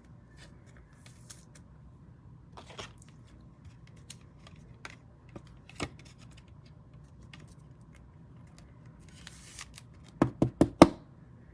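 Light handling noises on a desk: scattered soft clicks and a brief rustle, then a quick run of four sharp taps about ten seconds in.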